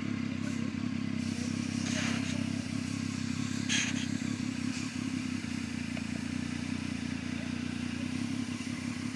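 Motorcycle engine idling steadily, with two brief rustling noises about two and four seconds in.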